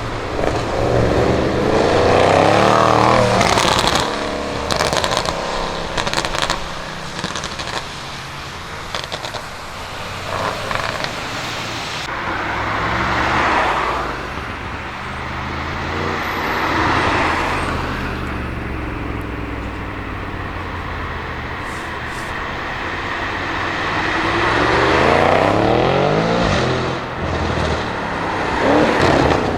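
Audi RS6 Avant C7's twin-turbo V8 through a Milltek exhaust, rising and falling in pitch through several hard pulls. A run of sharp exhaust crackles and pops comes a few seconds in, with a few more later.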